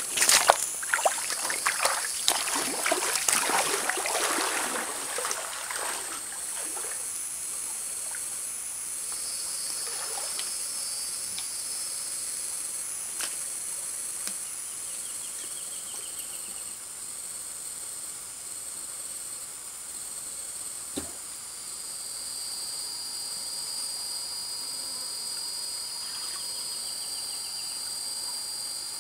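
Water splashing and sloshing for the first several seconds, then the steady hiss of a shallow stream under insects droning in high, steady tones, with a short trill twice.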